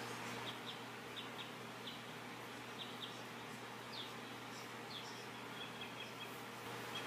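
Quiet background of steady hiss and low hum, with a few faint, very short high chirps every second or so.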